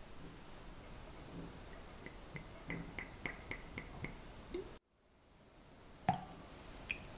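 Amaretto liqueur poured from the bottle into a small brass measuring cup, glugging in a quick run of short ticks about four a second. After a brief cut, one sharp, ringing clink of the metal cup against the rim of a glass bowl as it is tipped out, then a few lighter clinks near the end.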